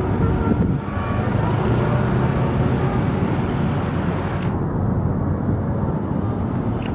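Bus engine running with a deep, steady rumble amid road noise; the last notes of a multi-tone telolet horn tune fade out in the first second.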